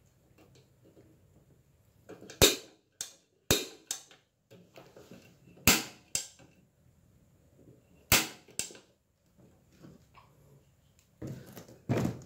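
Built-in piezo igniter of a Sunrise SR 201 Auto T2 double gas stove snapping as its knobs are turned with no gas connected: four sharp clicks a second or two apart, each followed by a fainter click. Near the end comes a clatter as the metal stove is handled and set down.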